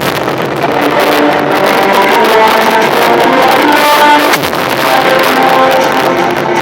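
Music played loud through a car sound system's Primer speakers, rated 1700 W RMS each.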